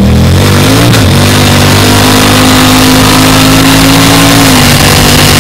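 Turbocharged 5.7-litre LS V8 of a Pontiac Trans Am under hard acceleration at 10 psi of boost, heard from inside the cabin. The engine note climbs in the first second, then holds high and steady, dropping slightly near the end.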